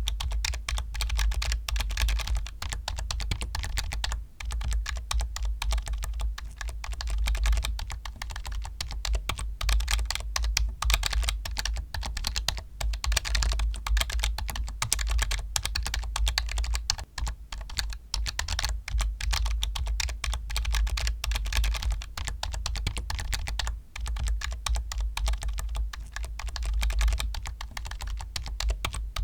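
Continuous rapid typing on a computer keyboard, a dense run of clicking keystrokes with a few brief pauses.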